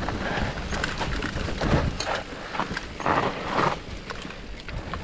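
Mountain bike rolling fast down a rough dirt singletrack: knobby tyres crunching over packed dirt, dry leaves and loose stones, with irregular rattles and knocks from the bike. The noise surges louder twice, briefly about a third of the way in and again just past the middle.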